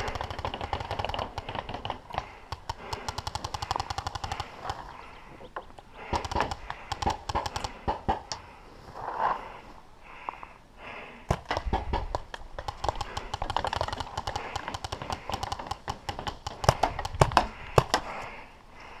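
Paintball markers firing rapid strings of shots, many pops a second, in repeated volleys. The loudest, sharpest shots come about three-quarters of the way in.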